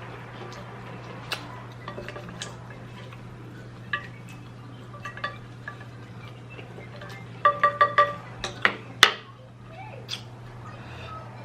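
Tableware clinking during a meal: scattered small clicks, then a quick run of about five ringing clinks a little past the middle. A steady low hum runs underneath.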